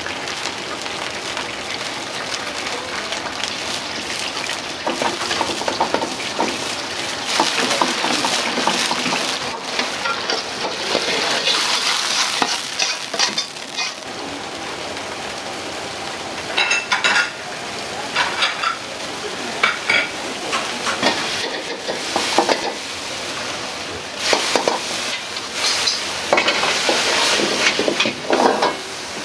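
Meat frying in hot oil in a wok over a high gas flame, a steady loud sizzle, with a steel ladle clanking and scraping against the wok in quick clusters, mostly in the second half.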